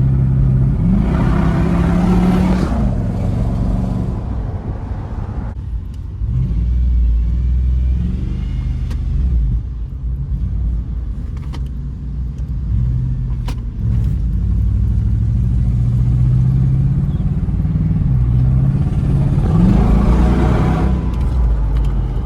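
Jeep engine with a rod knock straining as the Jeep is driven. The revs rise about a second in and again near the end.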